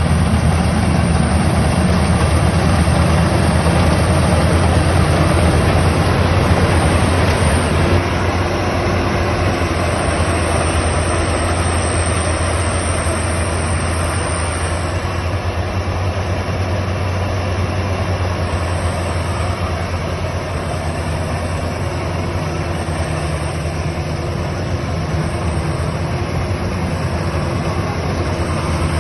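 Freshly serviced Maxxi Bimo Extreme HST 50cc engine running steadily, a little quieter after about eight seconds.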